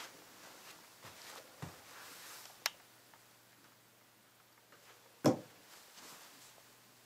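Quiet handling noises: faint rustling, a sharp click about two and a half seconds in, and a heavier thump a little after five seconds.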